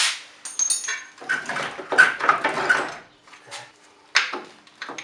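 Light metal clinks, scraping and rustling as a bolt is fitted by hand into the strut-to-steering-knuckle mount of a car's front suspension. The busiest stretch is about one to three seconds in, with a single sharp knock near the end.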